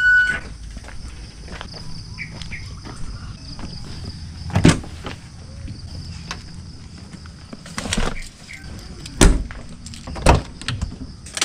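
Footsteps, then a car door being opened and four sharp knocks and thumps as someone climbs into the car, the loudest about nine seconds in, over a faint steady high whine.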